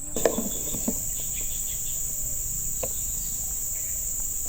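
Steady high-pitched drone of insects, cicadas or crickets, with a few faint knocks, and a sharp snap right at the very end.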